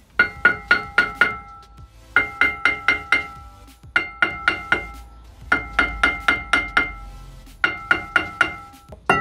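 Seized rear brake rotor of a Range Rover Evoque being hammered to free it from the hub: repeated sharp metal strikes in bursts of four or five, about four a second, each leaving the steel disc ringing like a bell.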